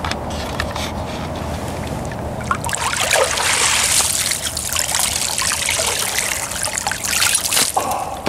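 Water sloshing, then splashing and pouring off as a drowned gray fox is pulled up out of shallow water, louder from about two and a half seconds in.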